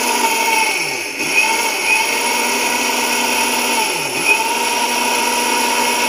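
Sahara Pride mixer grinder running at speed with its small stainless-steel dry-grinding jar, milling dry rice and red lentils into powder. It is a steady motor whine with blades churning, and it dips briefly about a second in.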